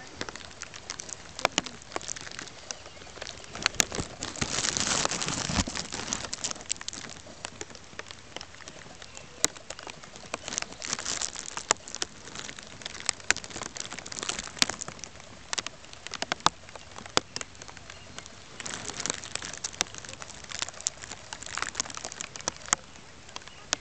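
Rain pattering, with many sharp single drops ticking and a few louder hissing stretches: about four seconds in, around ten seconds, and again near the end.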